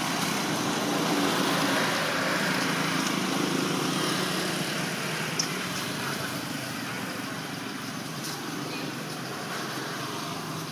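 A steady engine hum, with one brief click about five seconds in.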